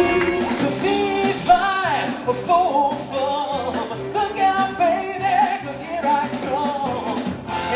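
A song performed by a singer with instrumental accompaniment; the vocal line wavers with vibrato.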